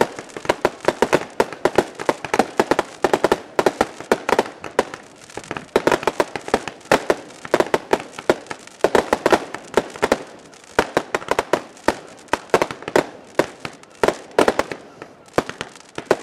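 Fireworks display: a rapid, unbroken barrage of aerial bursts, several sharp bangs and cracks a second, thinning out slightly near the end.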